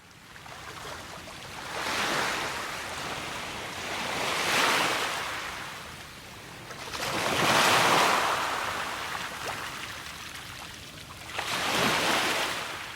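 Ocean surf: waves washing in and drawing back, swelling four times at intervals of about three seconds.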